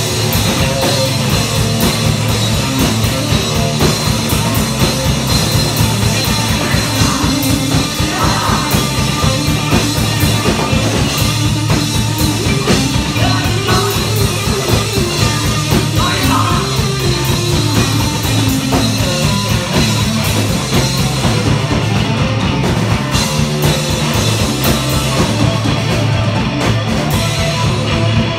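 A psych rock band playing loud, live: drum kit, electric bass and electric guitar, with a steady driving beat and strong bass.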